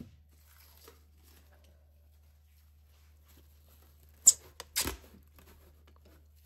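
Plastic cling film pulled off its roll: a sharp snap about four seconds in, then a short crackling rip as a sheet is drawn out over a glass bowl. A light knock at the very start.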